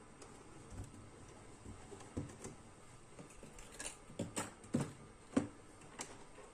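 Scattered small clicks and taps of tools and parts handled at an electronics repair bench, sparse at first, then a quick irregular run in the second half, during the fitting of a replacement IC to an amplifier board.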